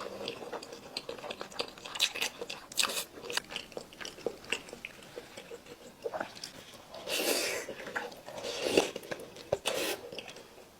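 Close-up mouth sounds of a person biting and chewing juicy braised chicken: many short wet clicks and smacks, with a few longer, louder mouth sounds in the last few seconds.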